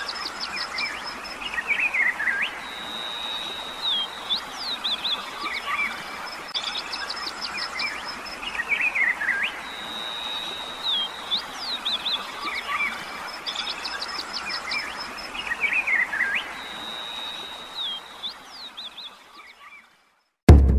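Forest birds calling: chirps, quick trills, a held whistle and falling slurred notes over a faint hiss. The same sequence of calls comes round about every six and a half seconds, and it fades out near the end.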